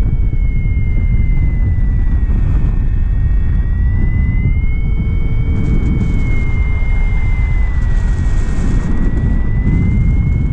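Wind rushing over the microphone of a paraglider in flight, with a steady high tone that slowly dips and rises in pitch throughout.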